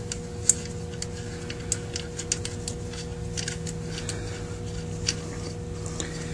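Small, irregular metal clicks and ticks of parts handled by hand: the idle mixture screw and its spring being fitted and started into the body of a Zenith 28 carburetor. A steady faint hum sits underneath.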